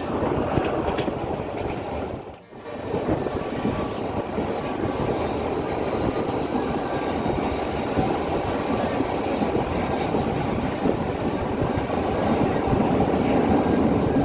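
Passenger train running at speed, heard from an open carriage window: a steady rumble of wheels on the rails. The sound dips briefly about two seconds in.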